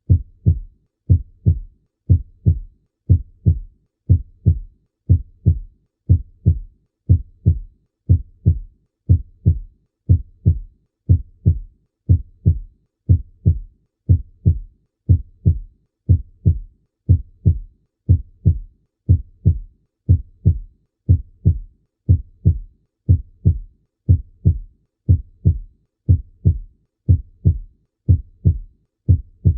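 Human heartbeat heard by cardiac auscultation: a steady, even rhythm of paired lub-dub thumps with quiet gaps between the beats.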